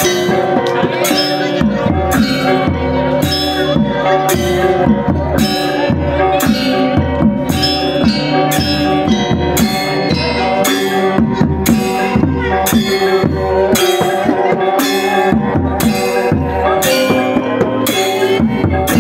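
Balinese gamelan gong ensemble playing: bronze metallophones ring in sustained, interlocking pitched tones over two-headed kendang drums struck with a stick, keeping a steady beat.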